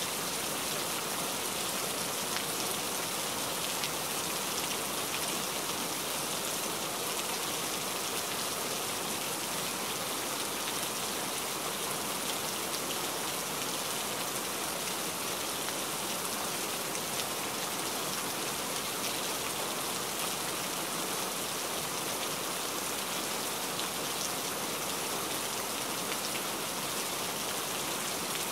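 Heavy rain falling steadily: a dense, even hiss of drops with fine pattering throughout.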